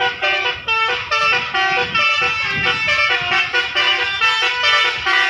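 Basuri 'telolet' musical bus horn playing a quick tune: several horn tones sound together and jump to new pitches every fraction of a second.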